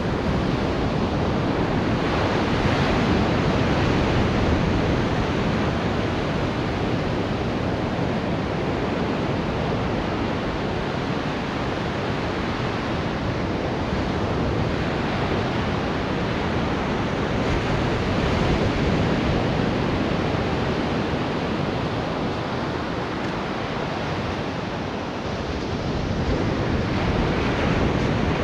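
Ocean surf breaking and washing up the sand, rising and falling in slow swells as each wave comes in. Wind buffets the microphone.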